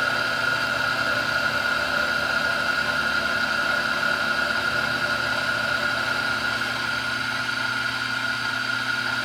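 Milling machine running steadily, its motor and spindle giving a constant high whine over a steady mechanical hum.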